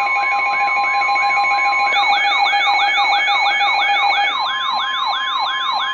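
Electronic emergency alert tones: steady tones under a siren-like sweep that repeats about four times a second, each sweep falling in pitch. A second sweep layer joins about two seconds in, and one of the steady tones drops out while the other changes about halfway through.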